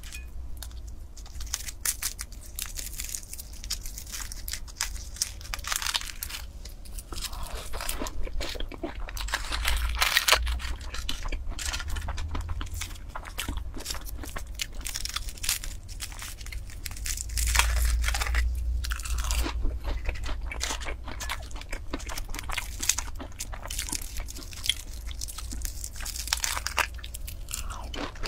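Egg tarts being bitten and chewed close to a clip-on microphone: the flaky pastry crust crunching and crackling in many small crisp bites.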